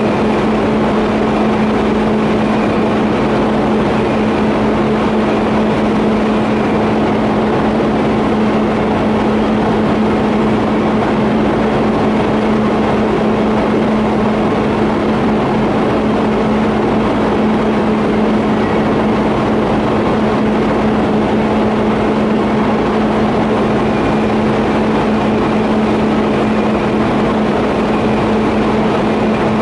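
TIG welding on a 50A pipe flange and elbow joint: a steady buzzing hum with a hiss, unbroken and unchanging throughout.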